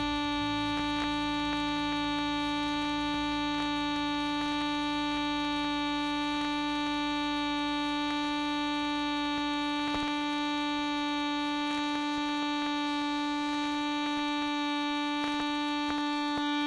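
Music from a vinyl record: a single droning note with many overtones, held without change. A lower part underneath drops away about a second in, and faint surface clicks come through.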